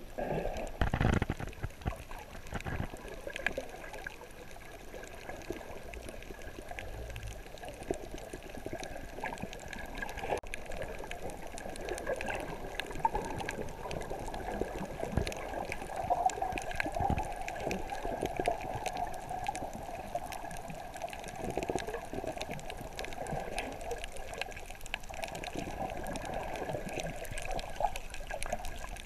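Underwater sound picked up by a camera held below the surface while snorkeling over a coral reef: a steady muffled watery rush with scattered small clicks and crackles. There is a louder burst about a second in.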